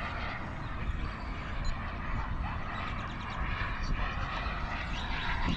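Turbine engine of a remote-control L-39 Albatross model jet in flight, a steady rushing jet noise with a heavy low rumble underneath.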